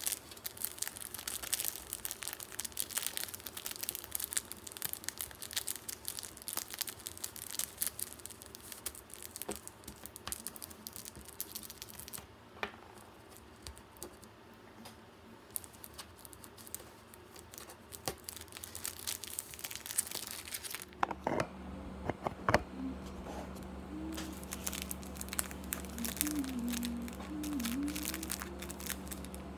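Clear plastic sheet crinkling and crackling as it is folded and creased by hand, in irregular runs of small crackles that thin out through the middle. A steady low hum comes in about twenty seconds in.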